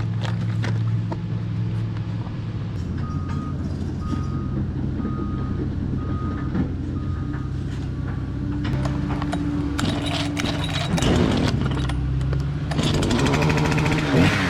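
Excavator's diesel engine running steadily, with its alarm beeping about six times, roughly once a second. The engine then revs up and grows louder, with clanks, near the end.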